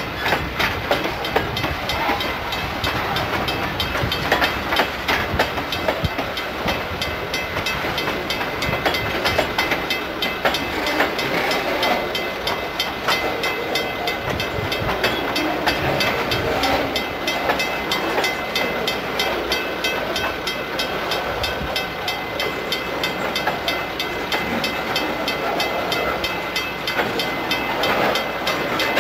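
Freight cars of a Norfolk Southern train, gondolas and boxcars, rolling past: a steady rail rumble with the wheels clicking and clacking continually over the rail joints.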